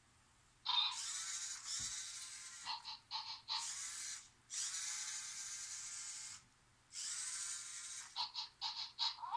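Remote-controlled toy robot dog's small geared motors whirring in several stretches of a second or two, with quick bursts of short pulses near the start and again near the end.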